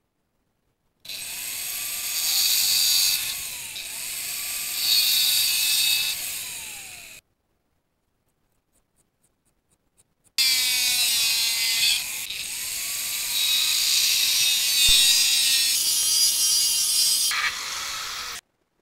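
A power tool grinding or sanding, its motor pitch dipping and rising as it is pressed into the work. It is heard in two stretches that start and stop abruptly.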